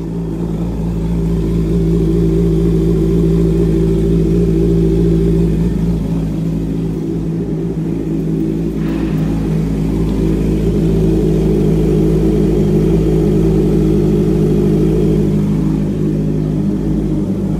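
Honda CB650R's inline-four engine idling steadily through an aftermarket full exhaust system, warming up after a cold start. Not that loud at idle.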